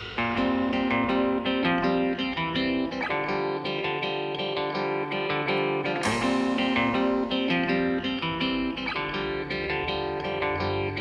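Instrumental music: a quick run of plucked string notes.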